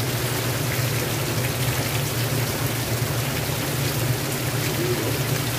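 Heavy rain falling steadily, splashing on a plastic barrel lid.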